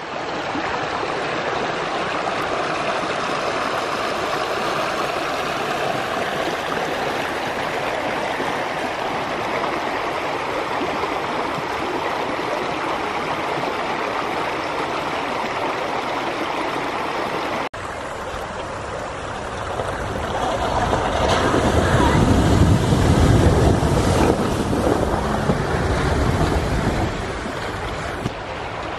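Shallow creek running over stones: a steady rush of flowing water. About two-thirds of the way through it cuts abruptly to a louder rushing noise with more low end, which swells and then eases off near the end.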